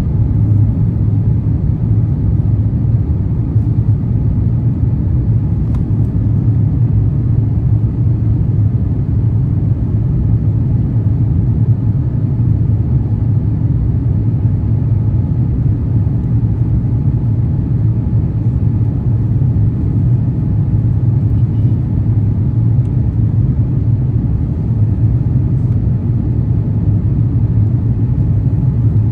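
Steady low rumble inside the cabin of an Airbus A350-900, from its Rolls-Royce Trent XWB engines and the airflow, with no change in level.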